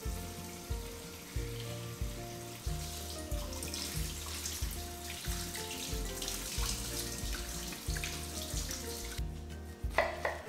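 Kitchen tap running water over enoki mushrooms rinsed by hand in a colander in the sink, with background music. The water stops shortly before the end, and then a knife cuts through the enoki root end into a wooden cutting board once.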